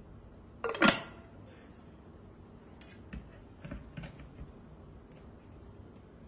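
Electric kettle being handled: one sharp clack about a second in, then a few light clicks and taps.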